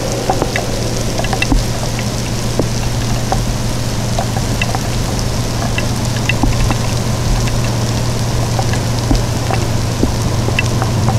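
Steady rain falling, with scattered drops ticking close by and a steady low hum underneath.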